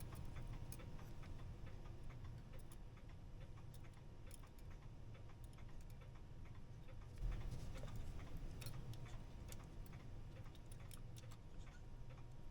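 Herschede clock movement ticking and clicking unevenly as it is tried after reassembly, not yet settling into a steady run. A dull bump about seven seconds in.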